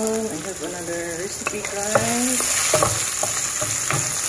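Sliced onions, garlic and red chilli sizzling in hot oil in a nonstick pan, stirred with a wooden spatula that knocks and scrapes against the pan. The sizzle grows louder about two seconds in.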